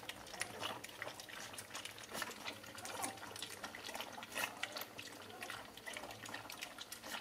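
Several puppies lapping milk from a shallow plastic tray: a steady, irregular run of small wet clicks and slurps from many tongues at once.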